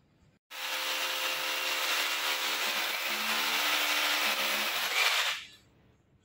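A power tool runs steadily for about five seconds. It starts abruptly and winds down near the end, and its whine shifts pitch partway through.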